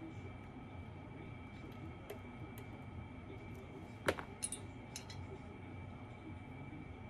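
Small metallic clicks of a lock pick working the pins inside a BKS Janus high-security lock cylinder: faint ticks, then one sharp click about four seconds in followed by two softer ones.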